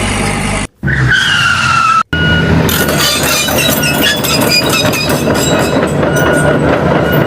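Vehicle sound effects, cut off abruptly twice: first a tone falling slowly in pitch, then a busy clattering rattle sprinkled with short beeps.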